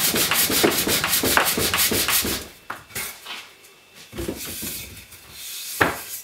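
Pine frame rubbed back and forth by hand on a board of 240-grit sandpaper glued to MDF, fine-finish sanding in quick rasping strokes. The sanding stops about two and a half seconds in, followed by a few light knocks, one sharper near the end.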